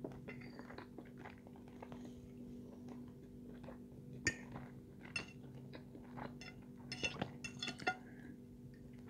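Metal fork clinking and scraping on a plate, with sharp clinks about four and five seconds in and a quick run of them near the end, over soft chewing and a faint steady hum.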